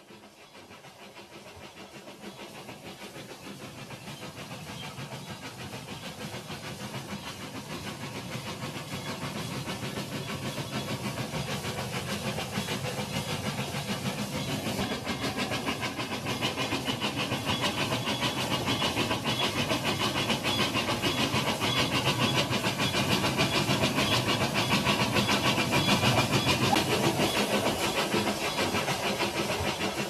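Remote-control toy train running on plastic track, a fast steady rattle of motor and wheels that grows steadily louder as it approaches.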